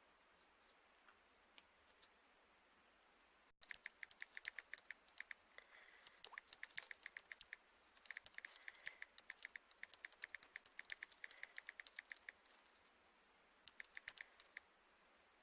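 Faint, rapid, sharp clicking in runs, starting about four seconds in and going on to about twelve seconds, with a short run again near the end; otherwise near silence.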